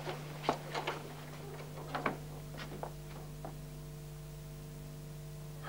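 Light clicks and knocks from a door handle being worked and people moving about at the door, over a steady low electrical hum. The clicks stop about three and a half seconds in, leaving only the hum.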